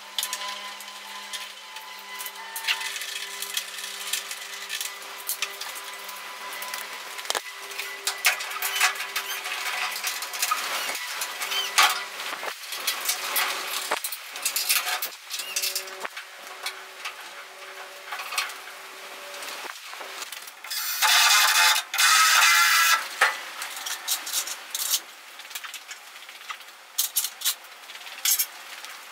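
Workshop handling sounds: tools and small metal parts clicking and knocking, with a loud burst of a power tool or air running for about two seconds roughly three quarters of the way through.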